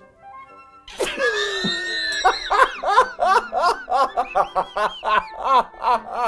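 A man laughing hard: after a quiet first second it breaks out with a drawn-out high cry, then runs into rapid ha-ha-ha bursts, about five a second.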